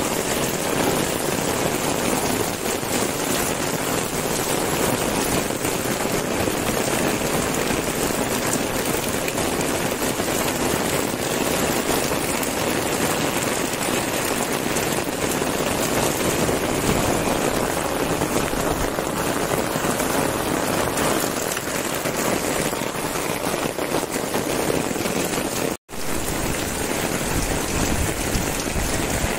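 Heavy monsoon rain pouring steadily, a dense, even hiss of downpour on roofs and pavement. It cuts out for a split second near the end, where the recording is edited.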